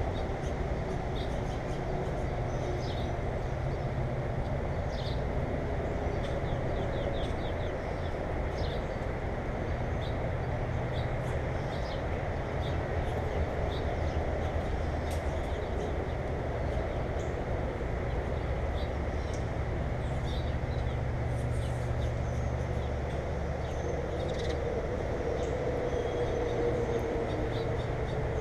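Short, high bird chirps scattered over a steady low mechanical rumble with a hum.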